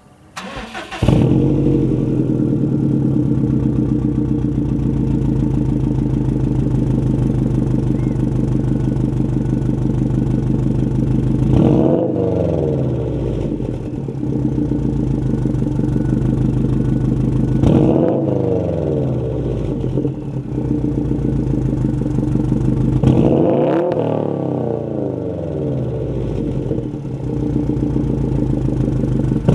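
Subaru WRX STI's turbocharged flat-four started through an AWE Touring exhaust: the starter cranks briefly, the engine catches about a second in and settles into a steady idle. It is then revved three times, with another rev starting at the end.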